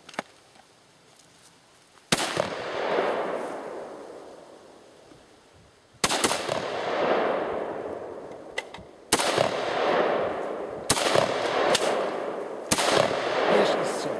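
Five single rifle shots from a Radom Sport Beryl semi-automatic rifle, fired one at a time about two to four seconds apart, each followed by a long echo rolling away.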